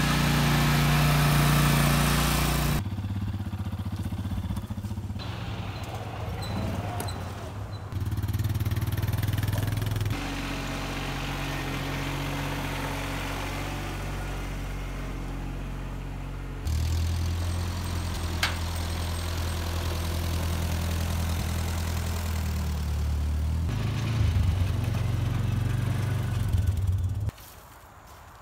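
Compact tractor engine running steadily, its level and pitch jumping abruptly several times; it stops about a second before the end.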